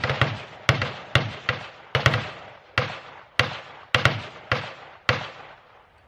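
A rapid string of gunshots, about two a second, each shot ringing out briefly. The shots stop about five seconds in.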